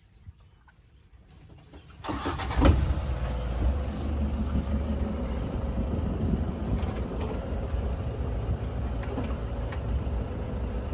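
Safari vehicle's engine starting about two seconds in, then running steadily.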